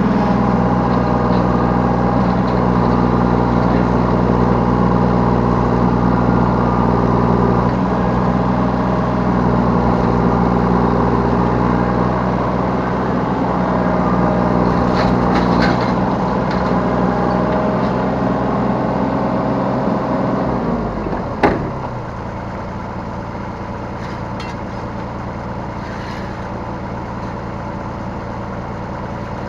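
Yanmar B3 Sigma 3-ton mini excavator's diesel engine running at working revs, then dropping in pitch about 20 seconds in. A sharp clunk comes about a second later, and the engine settles to a quieter, lower idle.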